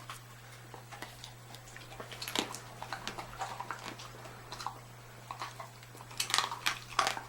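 A dog chewing a hard dried sweet potato treat, with irregular crunches and clicks of teeth on the chew that come thickest and loudest near the end.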